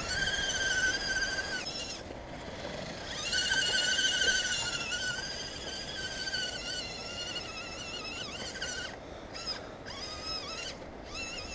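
Electric motor and gearbox of a radio-controlled crawler truck whining as it is driven, stopping and starting with the throttle: a short run, a pause of about a second, then a longer run that wavers in pitch and breaks into brief spurts near the end.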